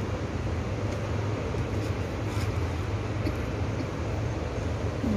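Steady low rumbling background noise of a large indoor gymnasium hall with many people seated in it, with a few faint clicks.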